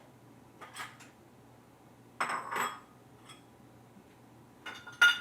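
A few short clinks and clatters of small hard objects, the loudest a sharp ringing clink near the end.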